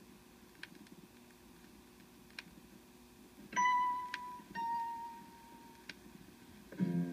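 Vinyl LP turning in the quiet groove between tracks: faint surface noise with a click about every 1.8 seconds, once per turn of the record. Around the middle come two clear ding tones about a second apart, the second slightly lower, and near the end the next track's music starts.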